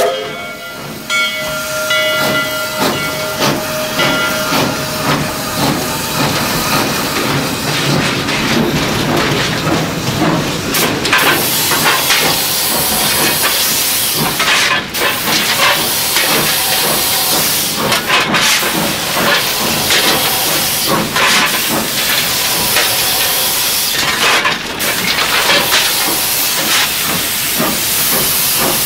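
Steam locomotive heard from inside its cab while running: a loud, steady hiss of steam over the clatter of the moving engine. The last of a whistle tone trails off in the first few seconds.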